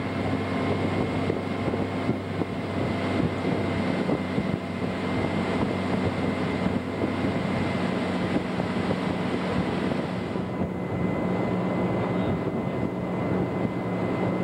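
Motorboat engine running steadily at towing speed, with wind noise on the microphone. The engine's hum shifts slightly about ten seconds in.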